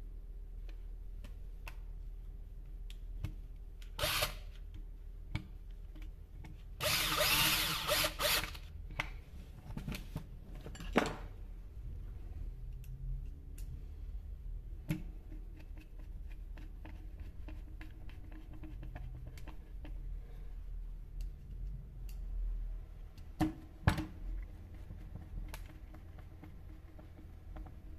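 Drill running in a few short spurts, the longest about a second and a half, to drive screws while a chainsaw is reassembled, with clicks and knocks of parts and hand tools between spurts.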